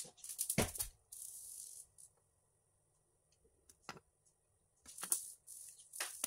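Scissors clicking and scraping on a thin red wire as its insulation is stripped: a few sharp snips, a short rasp about a second in, and more clicks later.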